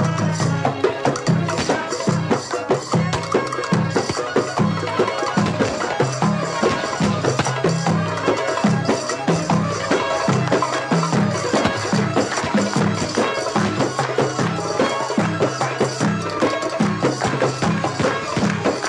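Egyptian folk wedding music: a live band with violin over a steady, repeating drum beat.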